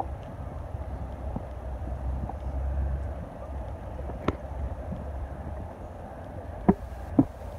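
Outdoor ambience: a steady low rumble, heaviest in the first three seconds, with a single sharp tap about four seconds in and two louder sharp knocks close together near the end.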